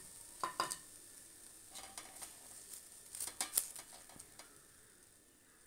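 A spoon stirring thick mashed tapioca in a metal pot, scraping and knocking against the pot in a few short clusters, over a faint sizzle from the hot coconut-oil tempering just poured on that fades away.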